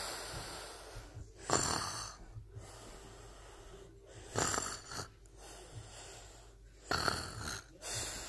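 Snoring: three loud, noisy breaths roughly every two and a half to three seconds, with quieter breathing between them.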